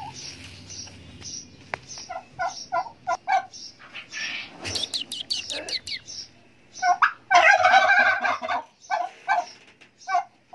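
Domestic turkey tom gobbling: a loud rattling gobble about seven seconds in, among runs of short repeated calls.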